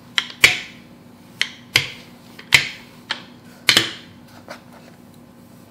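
Rolling pin with metal handles knocking and clacking against a wooden board while pie dough is rolled back and forth: a string of sharp knocks, loosely in pairs about a second apart, that stops about four seconds in.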